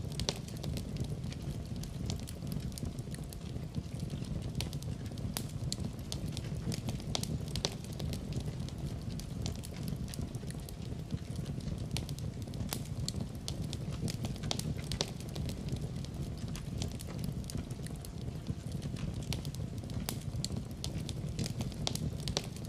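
Wood fire crackling: irregular sharp snaps and pops, several a second, over a steady low rumble of the burning fire.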